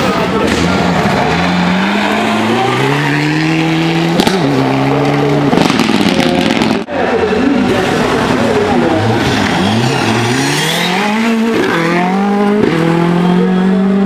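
Rally car engines revving hard as the cars accelerate out of a gravel corner, the pitch climbing and dropping back at each upshift. Two such runs, split by a sudden break about seven seconds in.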